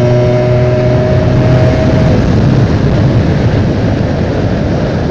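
A Honda Dio AF18 two-stroke scooter engine runs at a steady note while it is being ridden. About two seconds in, its note fades, leaving a steady rush of wind and road noise.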